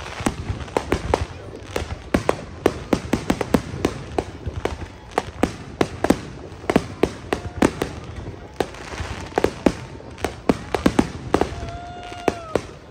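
Aerial fireworks going off in rapid succession: many sharp bangs, several a second, over a steady rumbling background.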